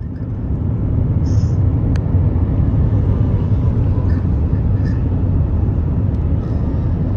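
Loaded BNSF coal train passing at speed, a steady heavy rumble of hopper-car wheels on the rails that swells up within the first second and holds, with a few faint short high squeaks from the wheels.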